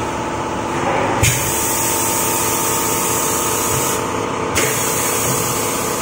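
Tyre-changing machine with compressed air hissing steadily over a low motor hum as the alloy rim is set on its turntable. The hiss brightens about a second in and dips briefly near the end.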